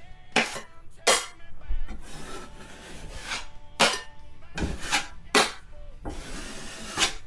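Drywall knife scraping over a freshly set blowout patch, smoothing and pressing wet joint compound along the paper edges in a series of short, sharp strokes with pauses between.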